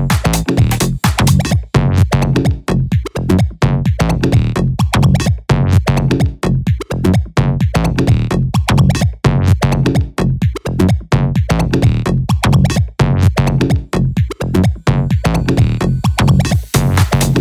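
Electronic tech-house club track: a steady drum-machine beat with a heavy bass line and synth parts.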